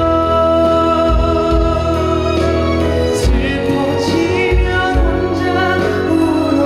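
Live pop ballad: a sung melody over band accompaniment with a steady low drum beat.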